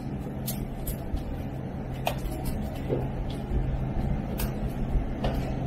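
Steady low hum of kitchen equipment, with scattered soft sticky clicks as pizza dough is pulled and pinched off by hand.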